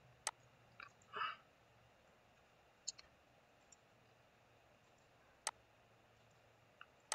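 Computer mouse button clicking: three sharp single clicks about two and a half seconds apart, with a few fainter ticks between, against near silence.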